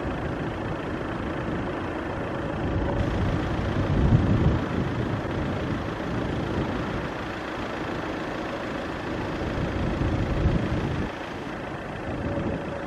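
Motor vehicle driving: a steady low rumble of engine and road noise that swells and eases slightly.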